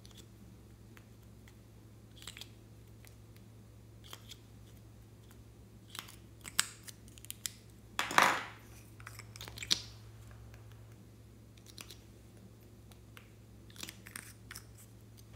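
Small plastic squeeze containers clicking and crackling in the hands while their contents are squeezed out onto slime. There is one louder squirt of about half a second a little after eight seconds, and a shorter one near ten seconds.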